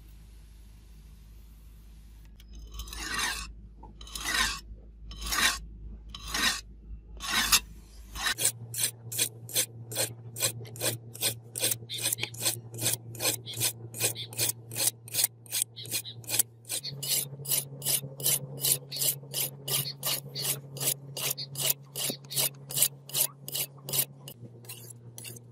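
A hand-forged steel butcher's cleaver is stroked across a wet Norton sharpening stone, scraping and rasping. There are about five slow strokes roughly a second apart, then a fast, even back-and-forth at about three strokes a second.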